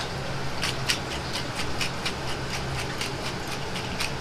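A pepper shaker shaken rapidly to season food, giving short rattling ticks about four times a second that start about half a second in. A steady low kitchen hum runs underneath.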